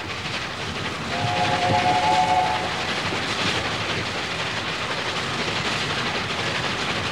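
Steam locomotive Sir Nigel Gresley, an LNER A4 Pacific, sounding its chime whistle, several notes held together, for about a second and a half, over the steady running noise of the train.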